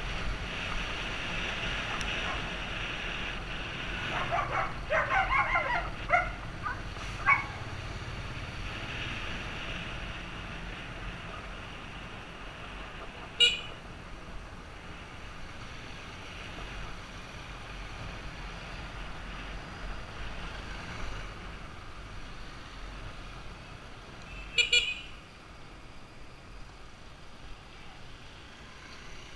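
Motorcycle engine running at riding speed under steady wind noise. A flurry of short horn beeps about five seconds in, and two brief sharp toots later, one about halfway and one near the end.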